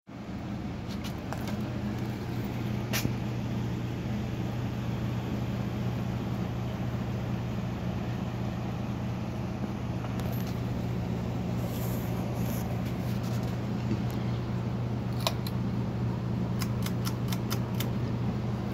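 Encon Monarch 52-inch ceiling fan running with a steady motor hum, a few sharp clicks over it, several in quick succession near the end.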